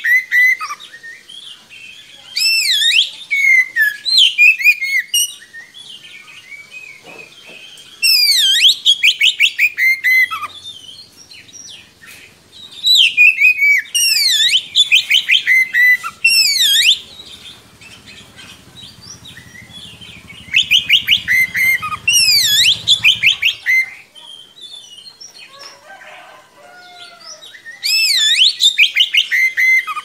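Oriental magpie-robin (kacer) singing in full song: loud phrases of rapid, repeated rising-and-falling whistled notes, each phrase two to three seconds long, coming about every five seconds with short pauses between.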